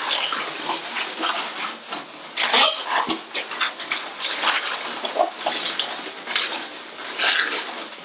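Latex modelling balloons squeaking and rubbing against each other in an uneven run of squeaks and scrapes, as a long black 260 balloon is pulled down, wrapped over a cluster of twisted balloons and squeezed.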